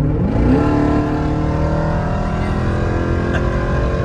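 Jeep Grand Cherokee Trackhawk's supercharged 6.2-litre V8 accelerating: the engine note jumps up in pitch in the first half-second, then keeps climbing slowly and steadily.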